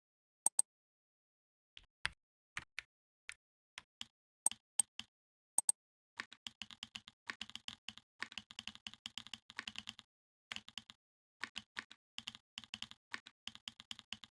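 Simulated mechanical-keyboard keystrokes played by the Kinbo typing-sound app. For about six seconds there are scattered single clicks, some with a bright high ring. Then come fast runs of typing with short pauses.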